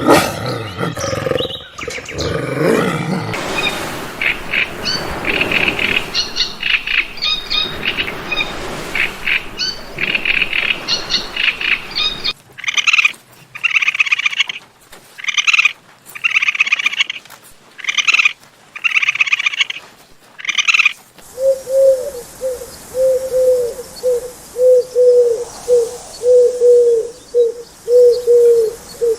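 A string of animal calls: a rough roar fading out at the start, then birds chirping, then a series of high calls about once a second, then a fast run of short, lower calls repeated about twice a second.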